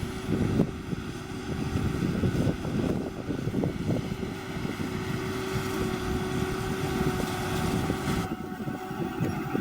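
John Deere 7530 tractor and Massey Ferguson 2270 square baler running steadily while baling hay: a dense engine and machinery rumble with a steady hum and irregular knocks from the baler.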